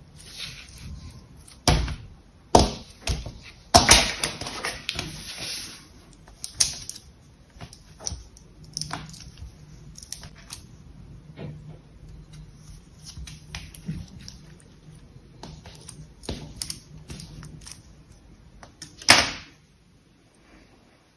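Hands squeezing and folding a lump of soft translucent green jelly, making sticky squelches, pops and crackles. The loudest come a few seconds in and again near the end. Quieter clicks come midway as a craft-knife blade presses and slices into the jelly.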